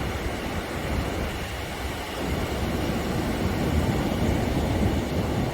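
Steady wind with a low, uneven rumble.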